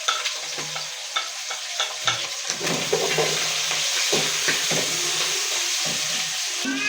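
Onions, meat and ginger-garlic paste sizzling in hot oil in a cooking pot while being stirred, with a spoon scraping and knocking against the pot now and then.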